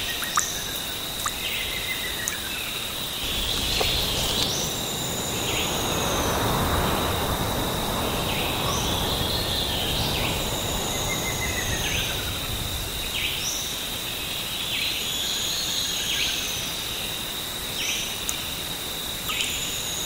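Forest soundscape: an insect's steady high trill runs throughout, while a bird repeats a short falling whistled call every few seconds and a lower falling call comes now and then. A soft rushing noise swells and fades in the middle.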